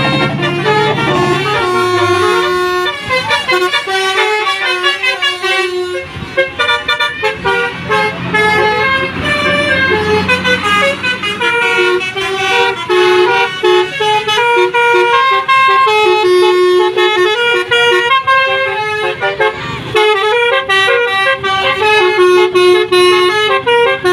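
Bus 'telolet' horn, a set of multi-tone air-horn trumpets, playing a quick tune of stepped notes that change several times a second, with brief breaks about six and twenty seconds in.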